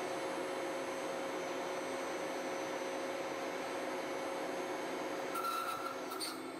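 Crankshaft induction hardening machine running: a steady mechanical hum with one constant mid-pitched tone while the crankpins are heated red-hot in the inductors. A brief higher-pitched hiss and squeal comes in near the end.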